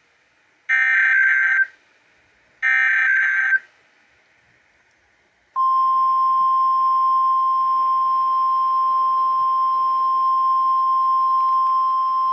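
Two harsh, buzzy digital bursts of about a second each, with short silences between them: the end of a NOAA Weather Radio SAME header. About five and a half seconds in, the National Weather Service 1050 Hz warning alarm tone starts, a loud single steady pitch that holds on.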